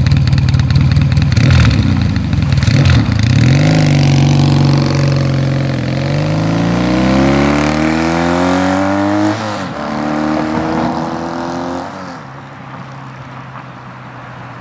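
A vertical-twin motorcycle engine idles, then the bike pulls away and accelerates through the gears: the pitch rises in each gear and drops at shifts about six and nine and a half seconds in, then the sound fades as it rides off.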